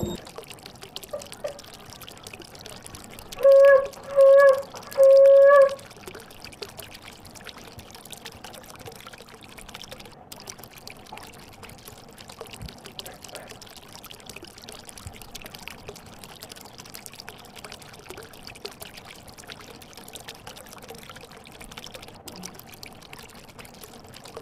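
Aquarium water trickling and pouring steadily. About three and a half seconds in, three loud, steady-pitched beeps sound in quick succession, the third one longer.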